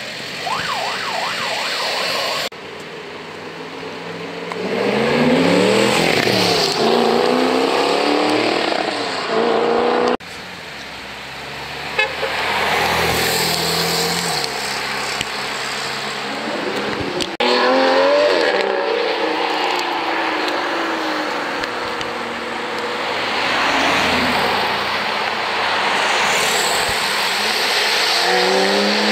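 Sports car engines revving hard as the cars accelerate away, one after another. Each pitch climbs and drops through the gear changes, and one pass switches abruptly to the next.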